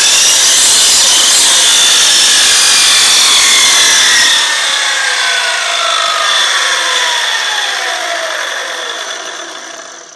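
Power mitre saw (drop saw) running at full speed and cutting through wooden crown moulding. About four seconds in it is switched off and the blade winds down, its whine falling steadily in pitch as it fades.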